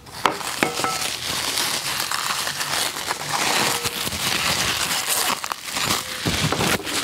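Clear plastic wrap crinkling continuously as it is handled and pulled off a metal part of a new hand-cranked corn grinder, with a couple of light ringing metal clinks in the first second.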